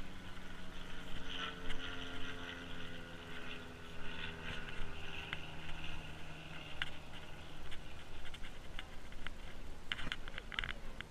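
A distant engine humming steadily, its pitch slowly falling until it fades after about eight seconds, with a few sharp clicks near the end.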